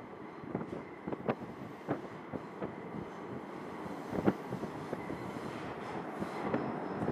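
New York City subway train approaching through the tunnel, its rumble slowly growing louder, with scattered sharp clicks and knocks from the track; the loudest knock comes about four seconds in.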